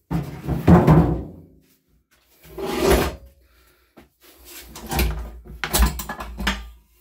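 Clunks, knocks and rattles of hard objects being handled and set down, in three short bursts.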